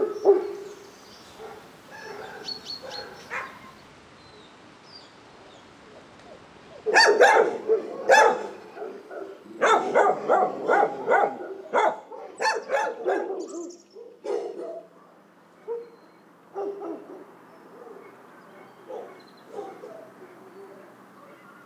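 Shelter dogs barking in their kennels. A loud bout of rapid barks comes about a third of the way in, then thins out into fainter, scattered barks.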